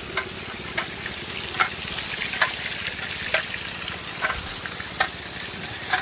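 Pumped water rushing through a sluice box lined with a Gold Hog mat: a steady hiss, with a faint low hum under it and a light click repeating a little more than once a second.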